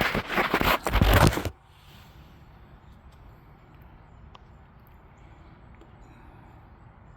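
Handling noise as a phone is set down: rubbing, crackling and knocks on its microphone for about a second and a half, cutting off suddenly. Then a faint steady background with an occasional light tick.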